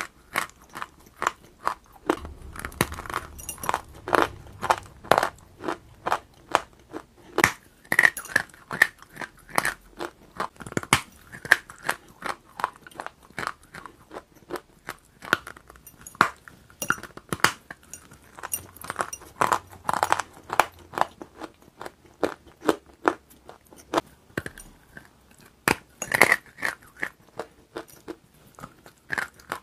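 Close-miked biting and chewing of a hard, crumbly white chunk: sharp dry crunches, a few each second, with louder bites now and then.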